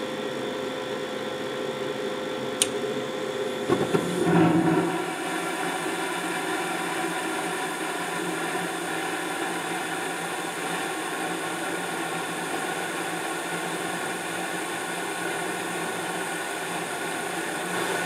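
Carrier 92% condensing gas furnace lighting off: the inducer runs with a steady hum while the hot surface igniter glows, a click comes about two and a half seconds in, and at about four seconds the gas burners catch with a whoosh. The burners then keep running with a steady, very loud roar.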